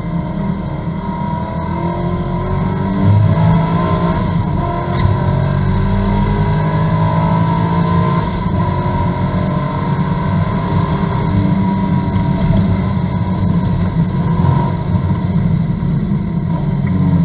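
Corvette GT2 race car's V8 engine heard from inside the cockpit, pulling hard under full acceleration with its pitch climbing and stepping back at the shifts, then running steadily at high speed on the straight.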